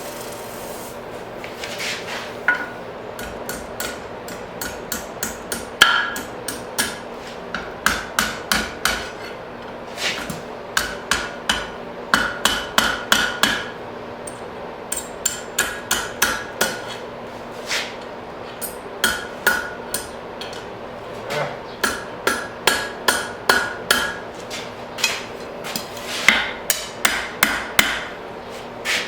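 Blacksmith's hammer striking hot steel bar stock on an anvil, forging a hook, in runs of quick blows with short pauses between, some blows leaving a brief ring. A steady hum runs underneath.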